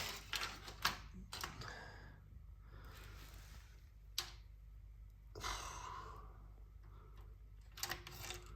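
Scattered light clicks and taps from handling a measuring tool against an intercooler core, several in the first second and a half, one about four seconds in and a short run near the end, with a soft rustle in between.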